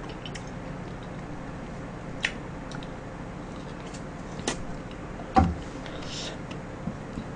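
A few faint mouth clicks and smacks from eating shaved ice off a wooden spoon, then a knock about five and a half seconds in as the spoon is set down in the plastic cup, over a low steady room hum.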